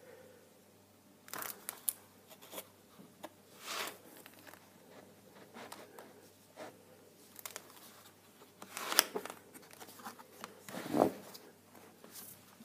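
Paper pages of a spiral-bound book being turned and handled: scattered rustles and swishes of paper, with a louder soft thud near the end as the book is closed.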